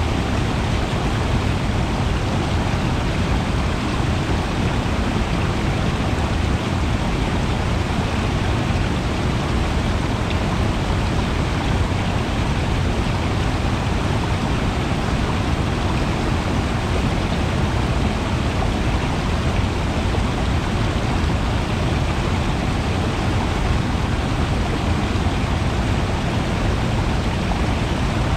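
Steady rush of running water, unbroken and even in level.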